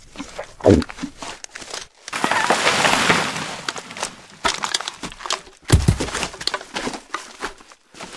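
Crinkling and crackling noises, with a longer rustle about two seconds in and a dull thump a little before six seconds.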